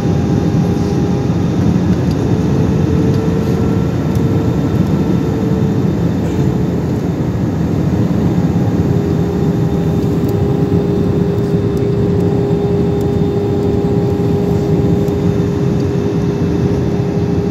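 Airbus A320 cabin noise on approach: a steady rush of air and engine hum with a few steady whining tones, one of which steps slightly higher in pitch about two seconds in and drops back a few seconds later.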